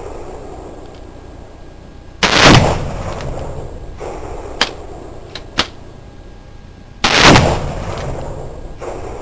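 .357 Magnum revolver fired twice, about five seconds apart, each shot very loud with a long fading echo. A few fainter sharp cracks come between the two shots.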